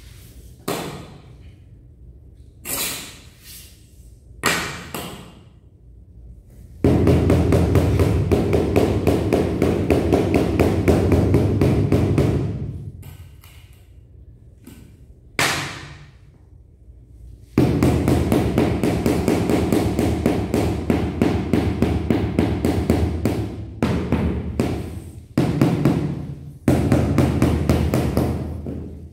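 Rubber mallet tapping a large floor tile, partly through a wooden straightedge laid on it, to bed the tile level in its mortar. A few separate knocks come first, then two long runs of rapid taps lasting several seconds each.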